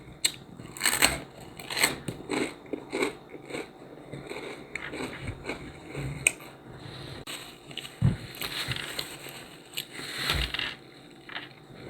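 A person biting and chewing crisp garlic and rosemary crostini close to the microphone: irregular crunches and crackles.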